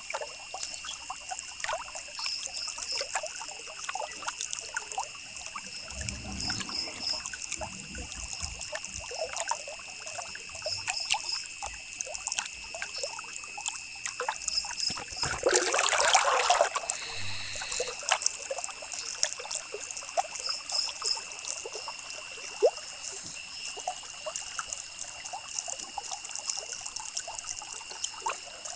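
Ballpoint pen scratching across paper in many small strokes, with a steady high whine behind it. About halfway through comes a louder rush of noise lasting a second or two.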